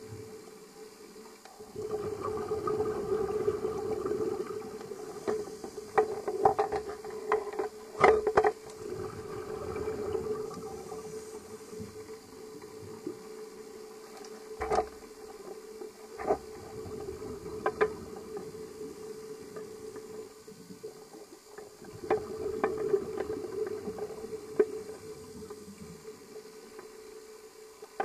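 Underwater sound picked up through a camera housing while scuba diving: the diver's exhaled air bubbling from the regulator in bursts a few seconds long, three times, over a steady hum, with scattered sharp clicks and knocks.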